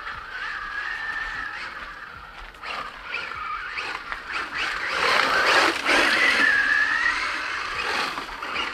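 Electric motor of a ZD Racing 08426 1/8 RC car whining, rising and falling in pitch with the throttle, over the crunch of its tyres on gravel. The gravel noise and whine are loudest about five to seven seconds in.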